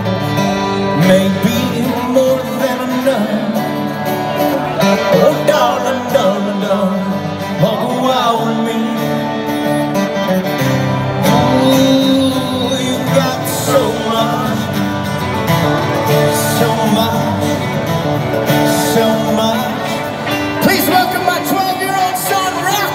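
Live rock band playing, with strummed acoustic guitars, electric guitar and drums under a male lead vocal, heard from the audience.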